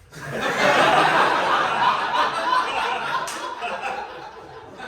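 Live audience laughing: the laughter swells to its loudest about a second in, then slowly dies away over the next few seconds.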